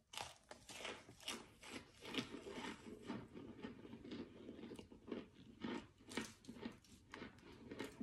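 Biting into and chewing a hard, microwaved chunk of packed white powder: a run of quiet, dry crunches, several a second.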